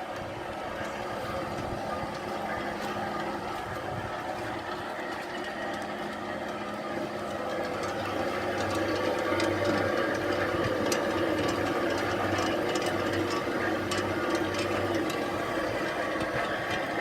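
Horizontal pellet mill running steadily, its motor and drive giving a constant mechanical hum with light ticking throughout. It gets somewhat louder about seven seconds in.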